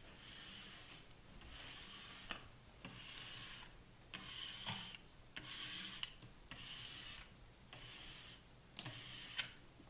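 Plastic squeegee rubbing over a wet plastic aquarium background film on the back glass of a tank, in repeated strokes about one a second. The squeegee is pushing trapped air bubbles and soapy water out from under the film.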